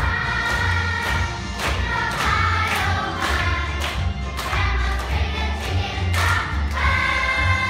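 A chorus of children singing together over music with a steady beat, about two strikes a second.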